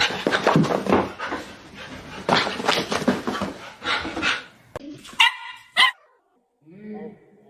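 A dog barking and grumbling in a rough, continuous run for about four seconds, then two short, loud, high yips about five seconds in.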